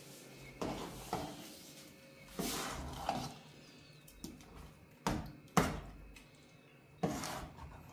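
Metal ladle stirring thick dhal in a metal cooking pot, knocking and scraping against the pot's side in a series of irregular strokes, the sharpest pair about five seconds in.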